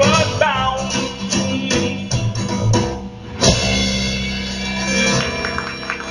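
Live blues band playing the end of a song: the last sung phrase trails off, the band plays on, then a single loud closing hit about three and a half seconds in rings out and fades.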